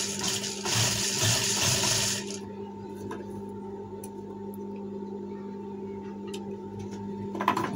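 Industrial sewing machine humming steadily, with a louder rushing run of about two seconds starting about half a second in, then a few light clicks as the cloth is handled.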